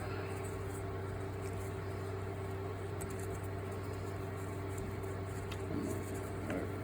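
Steady electric hum with a faint higher tone, likely from a motor or appliance running nearby, with a few light clicks and some handling noise near the end.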